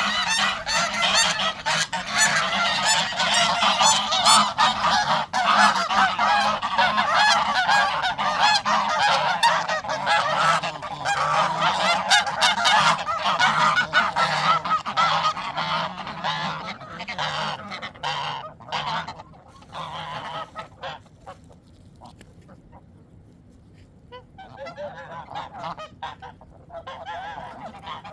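A flock of poultry calling, many loud overlapping calls at once; the calling thins out and drops away about two-thirds of the way through, then picks up again near the end.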